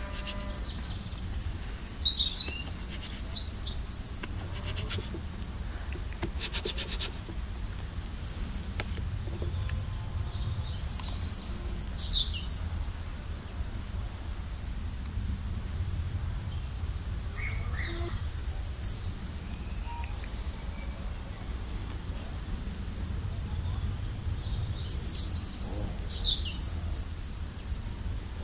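Small birds chirping in short clusters of quick high calls every several seconds, over a steady low background rumble.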